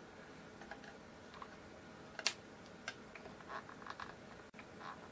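Faint, scattered clicks and ticks of small screws being worked loose from a guitar's hardware, with one sharper click a little past two seconds in.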